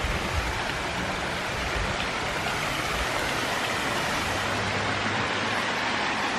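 Steady rushing of flowing water, an even hiss without a break, with a few low knocks in the first two seconds.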